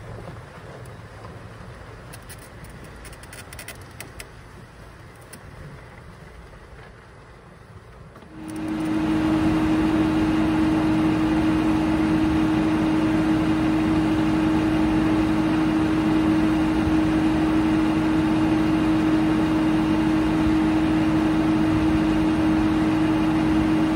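For the first eight seconds or so, a low, even rumble of riding in a small open vehicle. Then a Frick circular sawmill comes in suddenly, loud and steady, its 48-inch carbide-tipped blade spinning free with no log in the cut, driven by a three-cylinder Detroit Diesel engine: a steady running noise with a steady hum through it that does not change.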